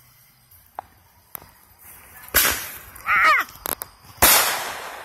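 Aerial fireworks bursting: a sharp bang about two seconds in, then a second bang a couple of seconds later that runs on into a crackle.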